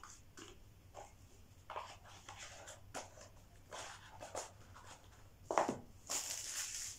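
Paper and cardboard packaging being handled: a paper instruction booklet handled and small cardboard boxes set down and shifted on a table, giving scattered light rustles and taps. A louder, hissing rustle comes near the end.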